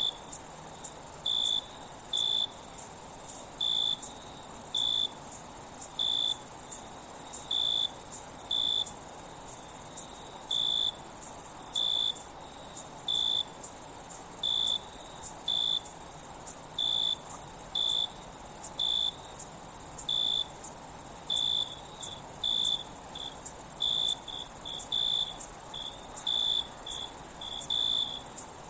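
Night insect chorus of crickets: a steady, very high-pitched insect trill runs throughout, with a lower cricket chirp repeating at uneven intervals of roughly once a second.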